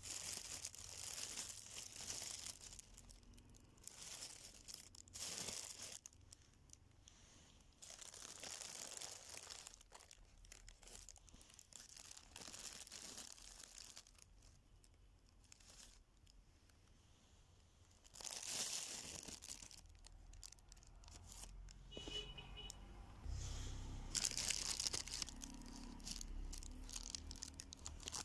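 Irregular bursts of crinkling and rustling, as of dry material or packaging being handled.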